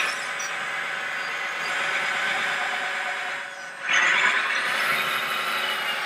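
Electric drive motors and gearboxes of radio-controlled model trucks whining steadily as they drive, dipping briefly and then surging louder about four seconds in.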